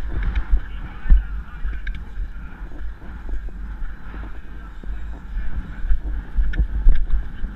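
Wind buffeting a helmet camera's microphone while riding a horse, a loud, uneven low rumble with irregular thumps and a few sharp clicks.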